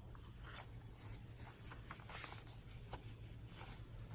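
Paper pages of a handmade journal rustling and swishing as they are turned and handled, with a broader swish about two seconds in and a light tap near three seconds.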